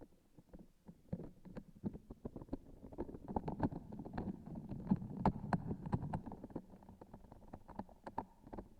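Close-miked pressing and squeezing of a transparent sticky object with a grainy filling inside: a dense run of soft irregular crackles and clicks, busiest in the middle and thinning out near the end.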